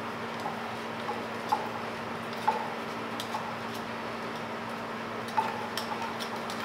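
Scattered light clicks and ticks from a metal can of condensed milk, and a wire whisk held against it, being handled over a plastic mixing bowl as the milk is poured. The clicks are sharpest about a second and a half, two and a half and five and a half seconds in, over a steady low hum.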